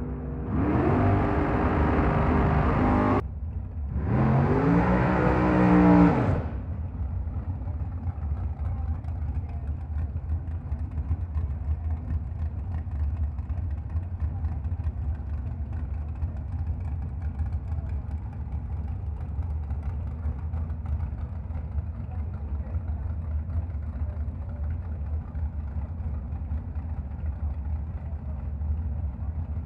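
Drag racing car's engine revving hard in two bursts of two to three seconds each, the pitch climbing in each and the second one dropping at its end, then a low steady engine rumble.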